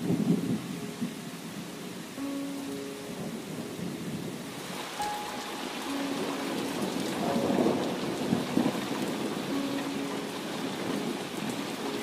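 Heavy rain pouring onto flooded rice paddies and open water, growing denser and hissier about halfway through, with rumbles of thunder.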